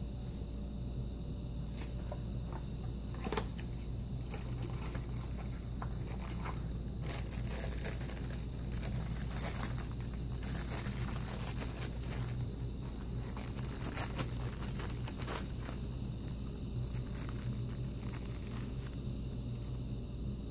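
Light rustling and a few sharp clicks from sewing-machine accessories (a plastic bag and metal presser-foot attachments) being handled, over a steady low hum.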